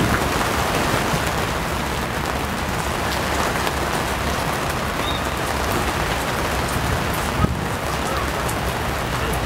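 Steady rain falling, with scattered drops ticking close by. One sharp knock about seven and a half seconds in.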